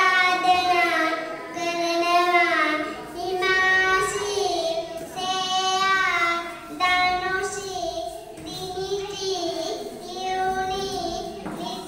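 A young girl singing solo in short phrases with long held, gliding notes and brief breaks between them.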